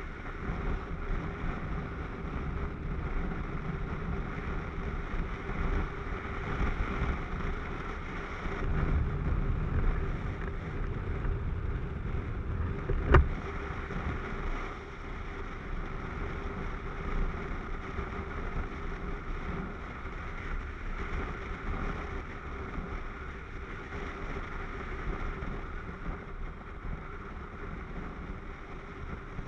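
Wind rushing over a helmet-mounted camera on a moving Yamaha MT-09 motorcycle, with its inline-three engine running steadily underneath. A single sharp knock about halfway through.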